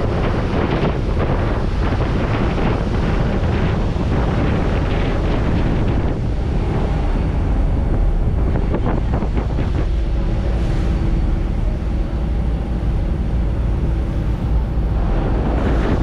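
Wind buffeting the microphone over the steady low rumble of a boat underway, with waves rushing and splashing against its hull.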